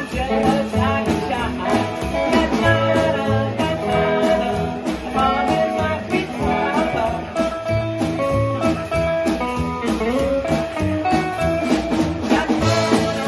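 Live rockabilly band playing: upright double bass, electric guitar and drums driving a steady beat, with a woman singing into the microphone.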